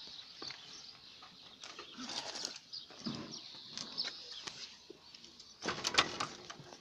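A gate's metal handle and latch being worked by hand, with scattered clicks and rattles and a louder clatter about six seconds in.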